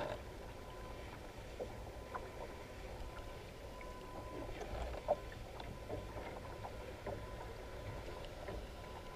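Kayak rocking on open sea: a low, steady rumble of water and wind against the hull and microphone, with a faint constant thin tone and scattered small knocks, one sharper knock about five seconds in.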